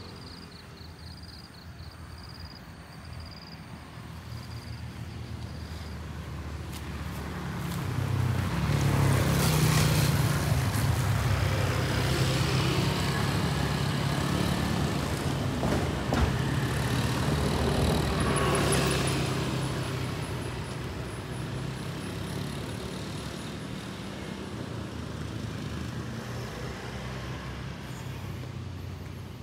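Small motorcycle engines passing on the road, growing louder from about eight seconds in and fading away after about twenty seconds. An insect's pulsing high trill is heard at the start.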